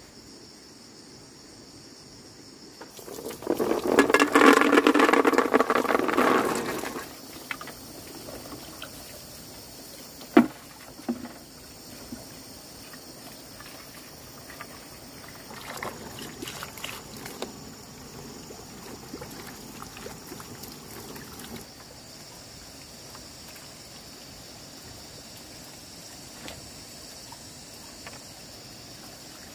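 Water running from a hose into a basin, loud for about four seconds, then one sharp knock. After that comes quieter, broken splashing as peanuts are rinsed by hand in a pot of water.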